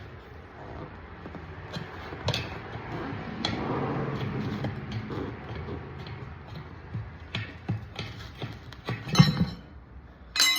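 Scattered clicks and knocks from a quad tire and its rim being handled, with one louder knock about nine seconds in, over a steady low shop hum.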